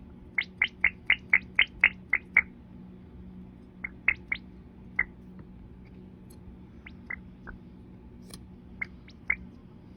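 Glass screen protector giving off short, high, bird-like chirps: a quick run of about nine in the first two and a half seconds, then scattered single chirps. A faint steady hum lies underneath.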